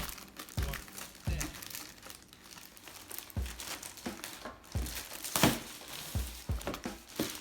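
Packaging being unwrapped and handled: irregular crinkling and rustling with scattered light knocks, and a louder crinkle about five seconds in.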